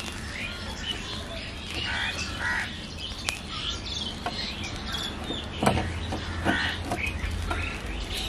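Birds chirping over a steady low hum, with a few sharp crackles, the loudest about two-thirds of the way in.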